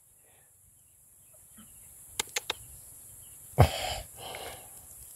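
Three quick sharp clicks, then a short heavy breath from a man straining against a big eel on his line, and a softer breath about half a second later.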